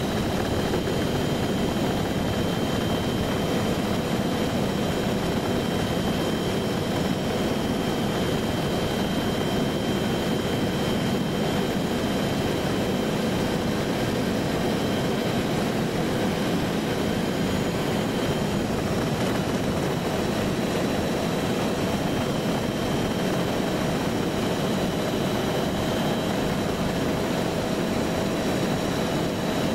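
Helicopter in flight, heard from aboard: a steady engine and rotor drone with a thin, steady high whine over it.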